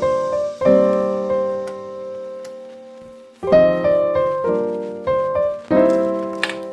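Background piano music: slow chords struck and left to ring, one long fading chord followed by a few quicker ones near the end.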